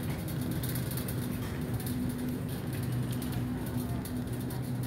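Wire shopping cart rolling over a hard store floor, its basket and wheels rattling and clicking irregularly, over a steady low electrical hum.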